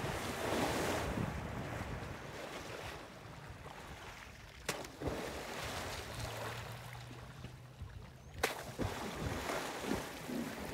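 Water splashing and sloshing as an elephant thrashes in a waterhole, loudest at the start, with smaller splashes near the end. Two sharp knocks come midway and about eight seconds in, over low wind buffeting on the microphone.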